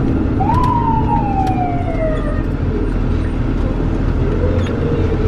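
Fire rescue truck's siren heard from inside the cab: one wail rises quickly to a peak about half a second in, then falls slowly for about two seconds. A lower tone follows near the end, over the steady rumble of the truck.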